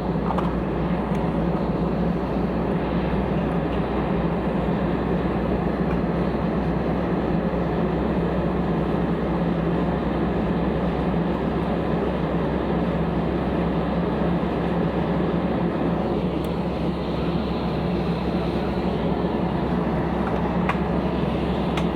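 Steady airliner cabin noise on the ground before takeoff: a constant hum and low drone from the aircraft's engines and air systems, unchanging throughout.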